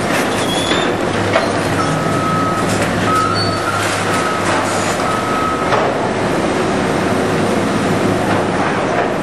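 Heavy demolition machinery running with a steady drone, a few sharp metallic knocks, and an on-and-off high squeal from about two to six seconds in.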